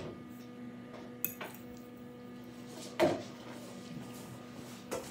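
A metal fork clinking against a dinner plate: a couple of light taps, then one sharp clink about three seconds in as the fork is set down on the plate. A steady low hum runs underneath.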